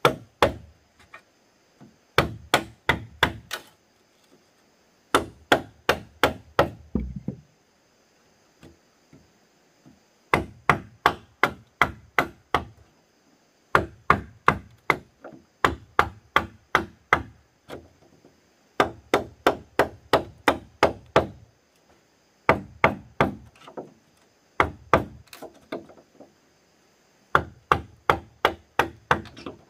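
Chopping strikes on wood, in quick bursts of several blows about four a second, with short pauses between bursts.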